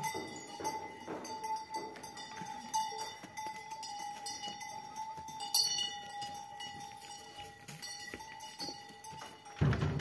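Cattle stepping out of a barn, with scattered knocks and clinks over a faint steady tone. Near the end a steel barn door shuts with a loud thud.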